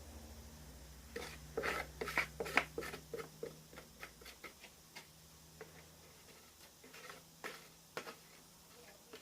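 Light clicks and taps of a plastic mould being handled, coming in a quick run about one to three seconds in, then scattered single clicks.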